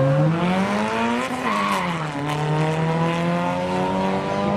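Drag-racing car's engine accelerating hard. Its pitch climbs for about a second and a half, drops sharply at a gear change, then climbs more slowly through the next gear.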